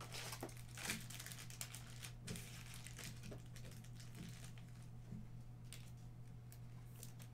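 Faint crinkling and light ticks of trading cards and plastic being handled, over a steady low hum.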